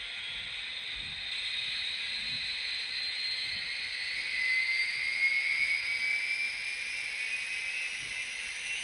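Sound decoders in N scale Union Pacific GTEL 4500 gas turbine locomotive models playing turbine sound through their small speakers: high whines rising slowly in pitch over a steady hiss, loudest about halfway through.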